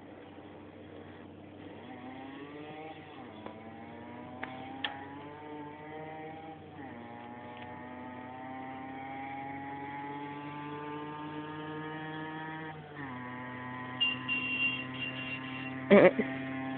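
Yamaha DT50's small two-stroke single-cylinder engine approaching from a distance, accelerating through the gears: the pitch climbs in each gear and drops at each of about four shifts as it grows steadily louder. A brief loud knock sounds near the end.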